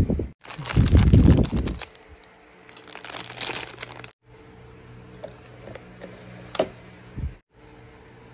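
Clear plastic toy packaging crinkling and rustling as it is handled, in two bursts about one and three seconds in, followed by a few light clicks of plastic toys being handled.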